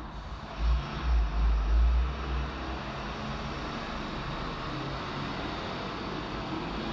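Steady hum of distant road traffic, with a few loud low rumbles from about half a second to two and a half seconds in.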